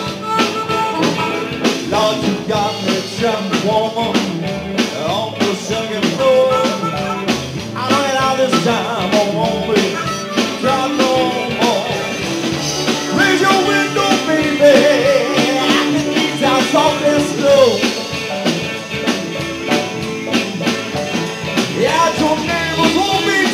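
Live rock band playing at full volume: electric guitars, bass guitar and drum kit.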